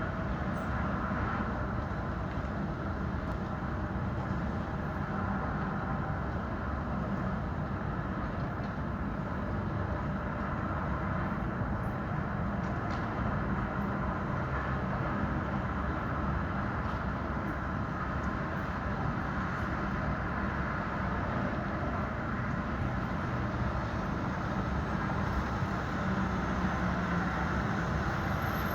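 Steady city street ambience: a continuous, even rumble of traffic noise with no distinct events.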